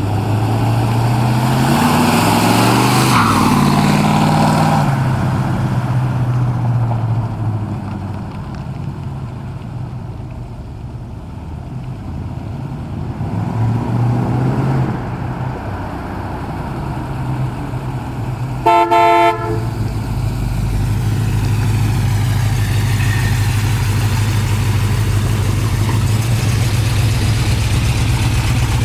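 1967 Ford Mustang's 302 V8 driving past, its engine pitch rising and then dropping as it goes by about three seconds in, and again more faintly around fourteen seconds. A short horn toot lasts about half a second, near nineteen seconds, after which the V8 runs steadily and louder as the car comes up close.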